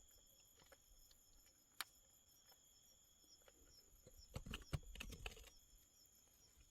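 Faint scattered clicks and rustles: one sharp click early and a close cluster a little after four seconds in. Behind them is a steady high insect trill.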